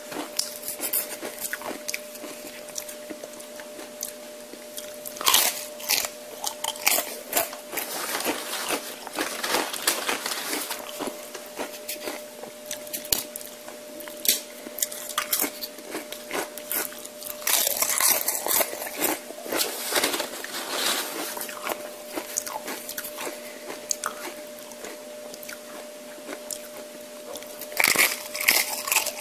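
Close-miked chewing of crunchy tortilla chips: loud crunching bites in bursts about five seconds in, around eighteen seconds and near the end, with wet chewing clicks between them. A faint steady hum runs underneath.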